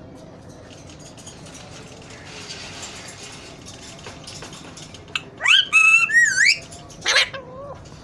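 Alexandrine parakeets calling: a quick run of loud whistled calls that bend and warble in pitch starts about five seconds in, followed by one shorter falling call about two seconds later.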